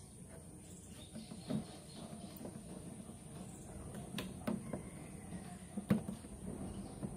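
A new rubber-and-plastic window weatherstrip being pressed by hand onto a car door's top edge, with a few light clicks and knocks as it seats, the sharpest about six seconds in.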